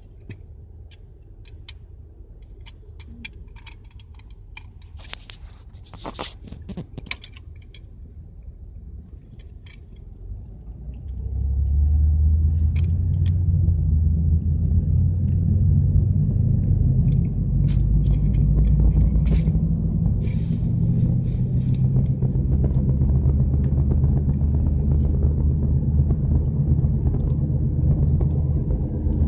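Low rumble of a car's engine and road noise heard from inside the cabin. It grows much louder about eleven seconds in and stays loud. Scattered clicks and a brief scraping rustle come early on.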